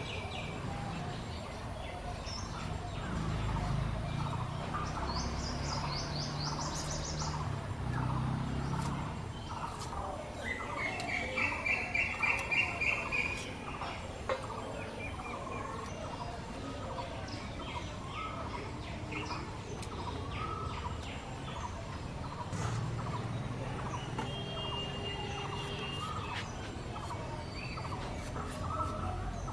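Wild birds chirping, with one bird giving a loud run of rapid repeated notes about ten to thirteen seconds in. A low hum comes and goes underneath.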